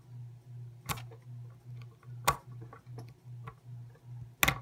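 Steel lock pick clicking against a tiny retaining clip on a brass padlock plug while prying under it, three sharp clicks spaced a second or more apart, over a low hum that pulses a few times a second.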